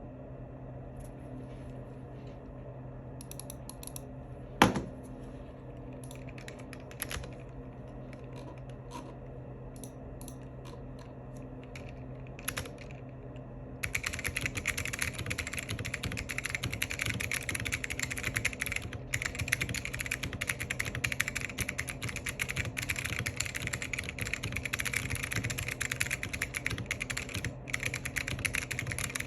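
Tenkeyless mechanical keyboard with Alps white switches on a POM plate and DCS-profile keycaps being typed on. For the first half there are scattered single keystrokes, with one much louder clack about five seconds in. From about halfway on the typing is fast and continuous.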